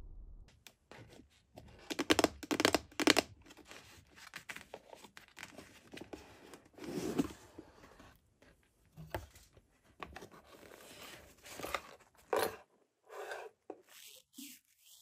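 Packaging being handled by hand: a cardboard box and a zippered fabric accessory case rustling and scraping, with irregular sharp noises. The loudest rustles come about two to three seconds in, followed by lighter, scattered scrapes.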